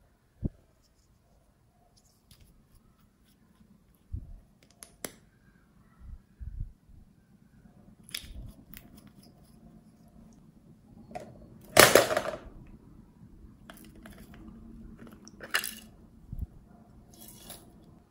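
Handling sounds while toppings go onto slime in a glass dish: small plastic containers set down with dull thumps, light clicks, and one louder rushing rattle, about a second long, two-thirds of the way through, as sprinkles are shaken out.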